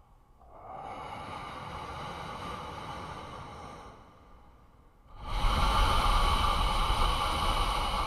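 Slow, heavy human breathing: a long, softer breath, then after a brief pause a louder, longer one.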